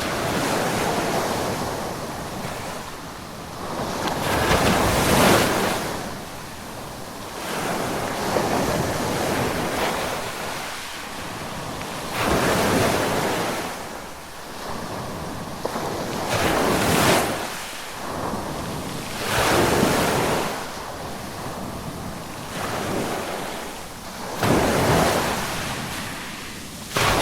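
Ocean waves breaking on a beach shoreline, one surge of surf after another every two to three seconds, each swelling and washing back out, with some wind on the microphone.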